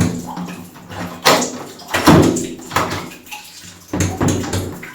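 A locked bathroom door being tried: the doorknob is turned and the door rattles against its engaged latch, with several sharp clicks and knocks.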